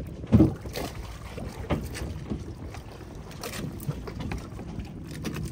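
Wind buffeting the microphone and water splashing against a small boat, with irregular knocks; the loudest comes about half a second in.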